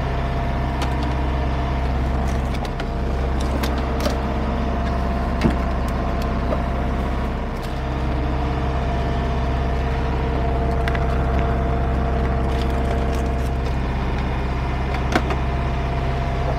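Steady drone of a sailboat's inboard engine heard from inside the cabin while motoring, with a few light clicks and knocks of plastic food containers being handled.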